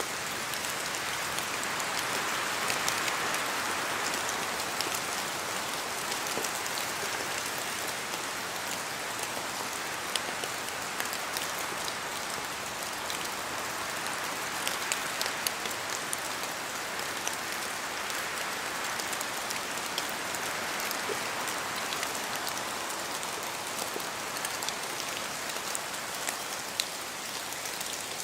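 Steady rain falling in a forest: a continuous hiss full of separate drop ticks as drops hit leaves and the ground. The hiss swells a little louder a few times.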